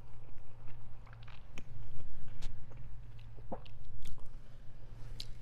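Close-miked chewing of a mouthful of spaghetti: irregular wet smacks and clicks of the mouth over a steady low hum.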